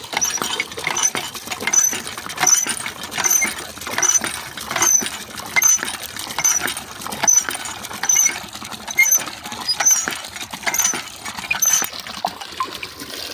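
Hand pump being worked at a steady pace, about one stroke every 0.8 s, a short high squeak on each stroke, with water gushing from its spout into a bucket. The pumping eases off near the end.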